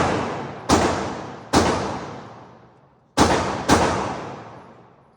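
Four gunshots, unevenly spaced, two pairs about a second and a half apart. Each is a sharp crack that dies away slowly over about a second.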